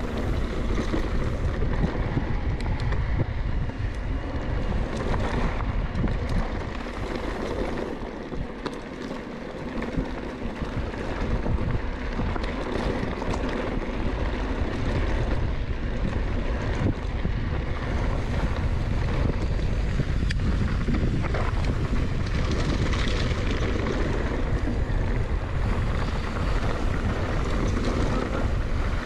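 Wind buffeting the microphone of a mountain bike rider moving along a dirt trail, with a steady low rumble of tyres on the ground and scattered clicks and rattles from the bike.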